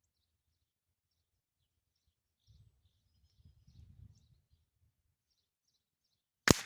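A single .22LR rifle shot from a Ruger 10/22, sharp and brief with a short ring-off, near the end, over faint birdsong.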